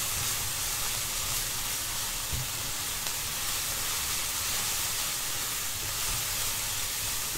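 Minced chilies frying in oil in a wok: a steady sizzle as a spatula stirs them.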